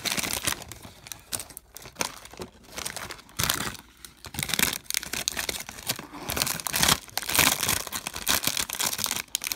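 Foil wrapper of a baseball card pack crinkling as it is handled, with the rustle of a stack of cards. The crinkling is loudest in the second half.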